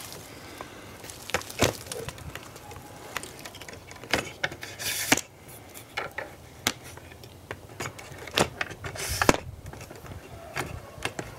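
Footsteps crunching through dry leaf litter and brush, with scattered twig snaps and a few short rustles of branches brushing past.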